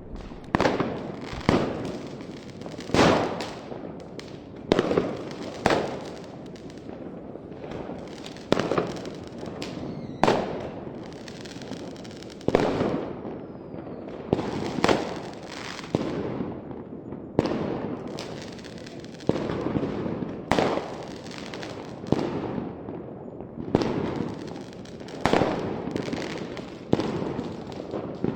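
Fireworks going off: a steady string of sharp bangs, about one or two a second, each followed by a fading rumble and crackle.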